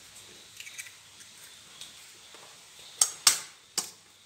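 An egg knocked three times, sharply and in quick succession, against the rim of a clear mixing bowl to crack its shell. The knocks come about three seconds in, the second the loudest.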